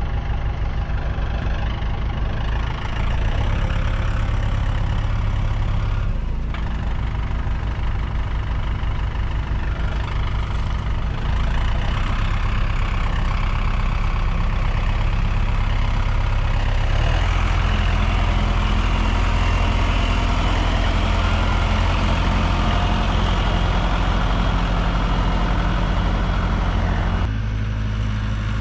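Tractor engine running steadily as it is driven, stepping up in engine speed about two-thirds through and easing back near the end.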